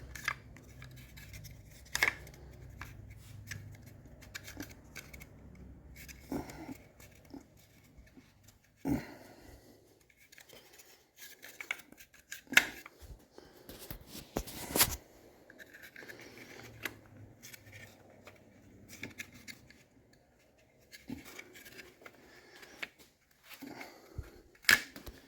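Irregular small clicks, knocks and scrapes of engine lifters and parts being handled and set down, with a low steady hum under the first few seconds.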